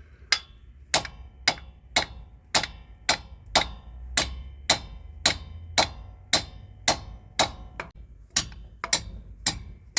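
A hammer striking a metal punch again and again, about two sharp, ringing blows a second, steady and even.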